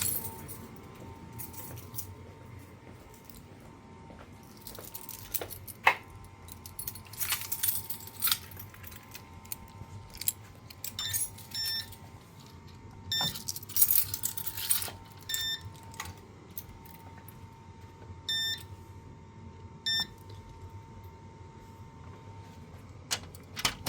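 A bunch of keys jangling and clicking on and off, with several short electronic beeps about halfway through and a faint steady tone underneath.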